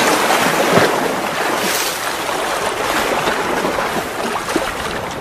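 Water churning and splashing as someone wades through shallow river water: a steady rushing noise with a few small ticks.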